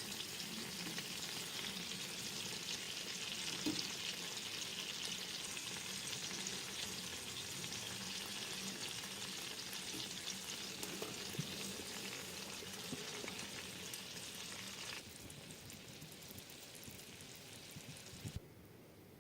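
Food sizzling and frying in a hot pan, a dense steady crackle. It drops abruptly about 15 seconds in, then again after a short thump near the end, leaving only a faint hiss.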